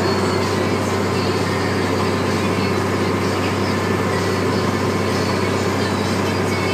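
Case IH 1455 XL tractor's six-cylinder diesel engine running steadily under load while pulling a four-furrow plough, a constant low drone.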